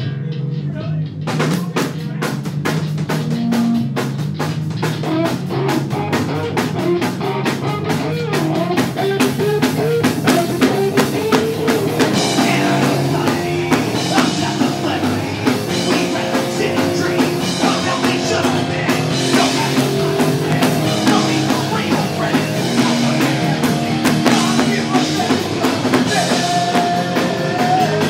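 Live rock band playing loud: drum kit, electric bass and electric guitar. The drums come in about a second in, and the playing gets fuller about halfway through.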